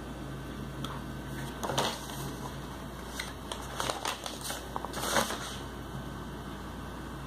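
Pages of a book being turned by hand: a few short paper rustles, the loudest about two seconds in and again about five seconds in.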